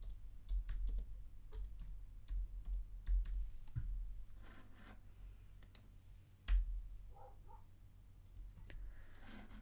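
Typing on a computer keyboard: a quick run of key clicks over the first few seconds, then a few scattered clicks, one of them louder a little past halfway.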